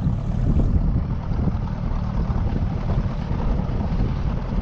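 Bass boat running across the lake under power: steady outboard engine and hull-on-water noise, with wind buffeting the microphone.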